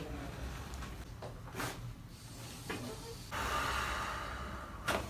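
Neck joints cracking during chiropractic cervical manipulation: a sharp pop about one and a half seconds in and a fainter one a second later. Then a long breath out by the patient ends in another sharp crack near the end, the popping of the neck's facet joints as they release gas (cavitation).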